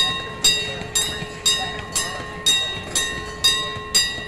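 A bell ringing at a steady two strokes a second, each stroke ringing on with a clear metallic tone, sounding as a miniature train passes; the ringing stops near the end.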